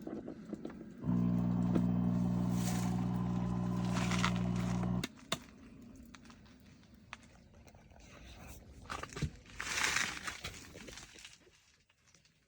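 An engine running at a steady idle, starting abruptly about a second in and cutting off abruptly about four seconds later. Fainter noise follows.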